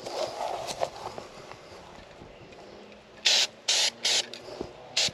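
Aerosol spray-paint can spraying black paint in four quick bursts in the second half, each lasting a fraction of a second, with the paint being laid on as a coat.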